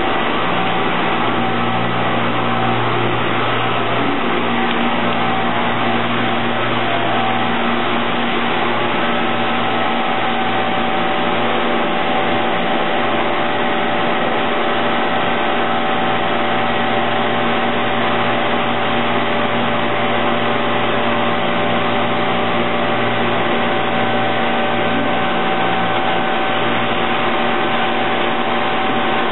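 Steady drone of plastics injection-moulding machinery on a factory floor: a constant noise with several steady hum tones and no distinct strokes.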